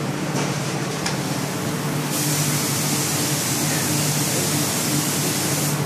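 Hand-held flock applicator loaded with red flock powder, working with a steady machine hum. A high hiss comes in about two seconds in and stops near the end.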